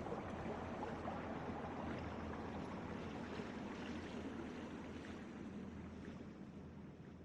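Water fountain splashing and running: a steady rushing of falling water that fades out gradually over the last few seconds.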